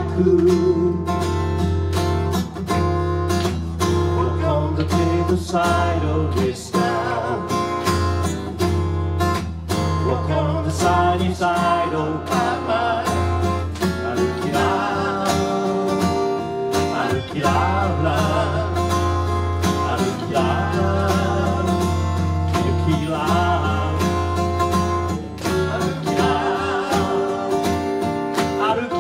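Live performance of a male singer over an amplified acoustic guitar playing a steady rhythm.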